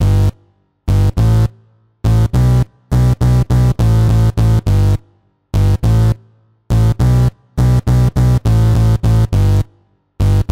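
Serum's 'BA fuzzbass' preset, a distorted synth bass, playing a choppy bass line of short notes that start and stop abruptly, in groups with brief gaps between them.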